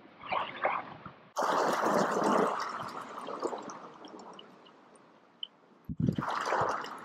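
Gusty wind buffeting the microphone outdoors. It comes in abruptly about a second in, fades over a few seconds, and returns with a short low thump near the end.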